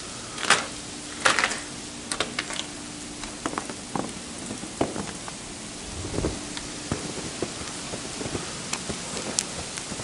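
Sleet: ice pellets ticking irregularly on snow and outdoor surfaces over a steady hiss, with a few louder crackles in the first second and a half.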